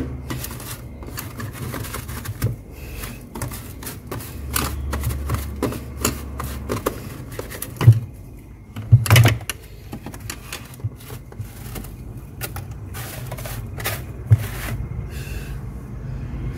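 Fingers scraping and scooping loose, snow-like frost off a freezer's wire shelf, a quick irregular run of soft crunches and crackles with louder scrapes at about eight and nine seconds. A steady low hum runs underneath.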